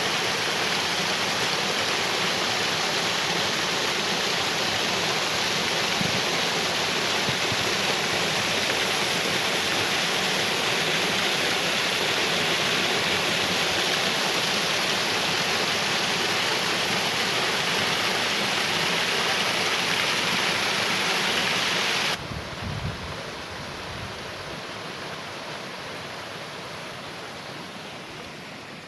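Rushing water, a steady loud rush. About 22 seconds in it drops suddenly to a softer rush that slowly fades.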